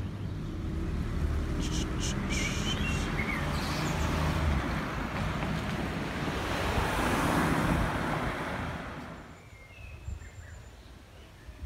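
A car passing on the street, its engine and tyre noise swelling to a peak a little past the middle and fading away about nine seconds in.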